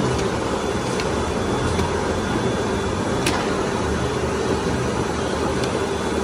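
Spindleless veneer peeling lathe running as it peels veneer: a steady, dense mechanical din with a steady hum underneath and a few sharp clicks, the loudest about three seconds in.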